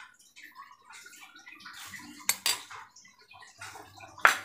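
Metal spoon scraping and tapping against a glass dish as crumbly bait is spooned out, with sharp clinks: two close together a little past the middle and a louder one near the end.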